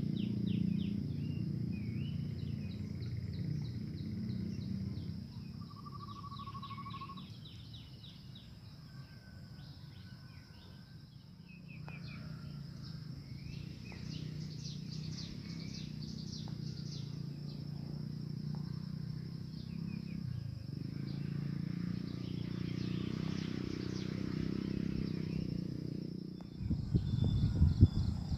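Countryside ambience: small birds chirping and twittering, with a short trill about six seconds in, over a steady high insect drone and a low rumble. A loud low bump comes near the end.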